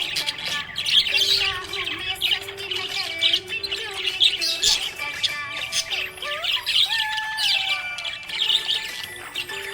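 Budgerigars chirping and warbling without a break: quick, high chirps and chatter, with a few sliding whistled notes about two-thirds of the way in.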